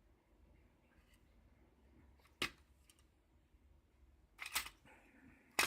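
Small hard tools clacking as they are rummaged through and set down: a sharp knock about two and a half seconds in, a short cluster of clatter a couple of seconds later, and another sharp knock near the end.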